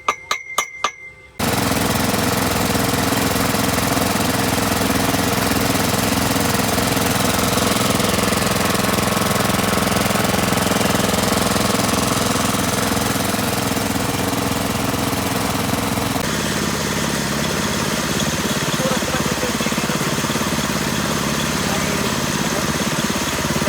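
A few metallic clinks, then a deep-well drilling rig's engine running loud and steady with a fast, even knocking beat. About two-thirds of the way through, the sound shifts and becomes a little thinner.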